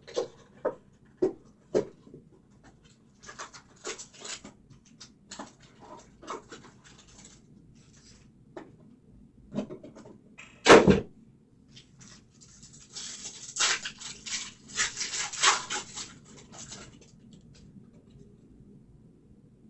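Trading card box and packs being handled and opened: scattered light taps and clicks, one sharp knock about eleven seconds in, then a few seconds of crinkling and tearing wrapper.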